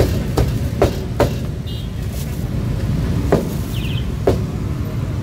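Cleaver chopping meat on a wooden block: four quick chops in the first second or so, then two more about a second apart, over a steady low rumble.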